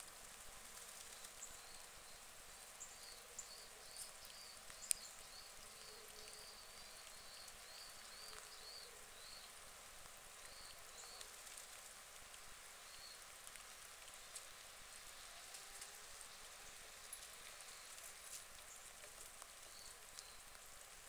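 Near silence: faint outdoor hiss with scattered light ticks and one sharper click about five seconds in. A faint run of quick, high chirps comes between about three and eleven seconds.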